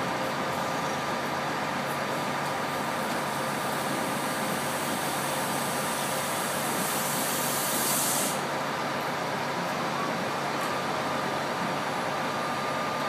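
Peter Pan motorcoach's diesel engine running steadily close by, with a sharp air hiss from its air brakes lasting about a second and a half, about seven seconds in.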